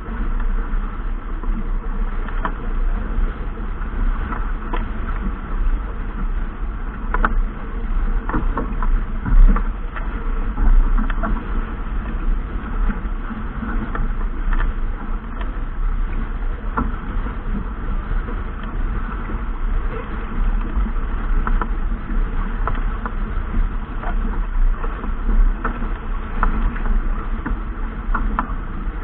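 Steady wind and water noise on a boat under way, with a deep low rumble and scattered knocks and clicks.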